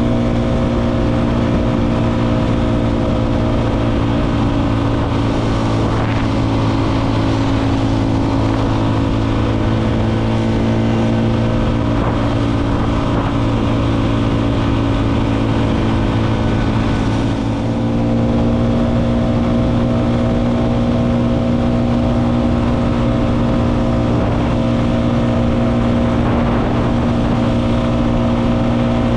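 Motorcycle engine running at a steady cruising speed, its note holding level, with a brief dip in the engine note about seventeen seconds in.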